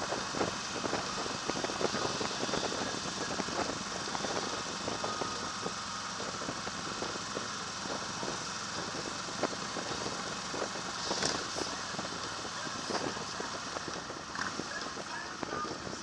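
Motorcycle riding at road speed, its engine running under steady wind noise and buffeting on the bike-mounted camera's microphone.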